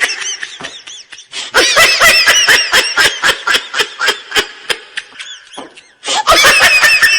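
High-pitched laughter sound effect: quick repeated 'hee-hee' bursts, several a second, each rising and falling in pitch. It fades off about five and a half seconds in, then a fresh loud run of laughs starts just after six seconds.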